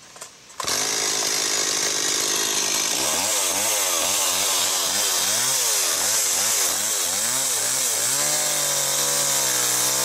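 Stihl two-stroke chainsaw coming in loud under a second in and running at high revs, then cutting down into a log from about three seconds, its engine pitch wavering up and down under load; near the end the pitch steadies again.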